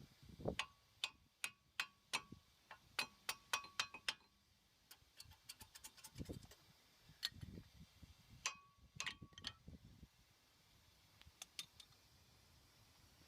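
Sharp metallic clicks and clinks from hand tools and brake parts being worked on a car's front brake caliper. They come at an uneven pace, several with a short ringing tone, with a quick run of lighter clicks near the middle and a last few near the end.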